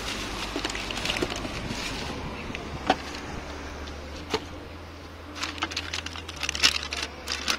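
Plastic bag and bubble wrap rustling and crinkling as they are handled, pulled off a boxed part, with scattered sharp crackles that come thicker in the second half.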